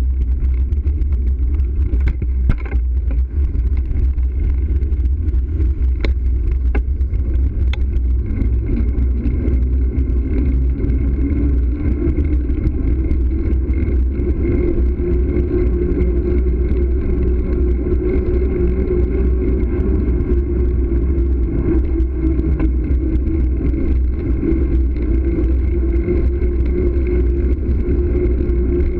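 Wind rumble on a bicycle-mounted camera's microphone, with tyre and road noise from riding along a city street. There are a few sharp clicks in the first eight seconds, and a steady hum joins about halfway through.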